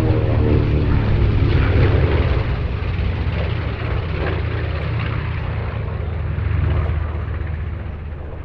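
Piston-engined World War II propeller warbirds flying by with a steady engine drone. The engine note slides down in pitch at the start as they pass, then the sound slowly fades away.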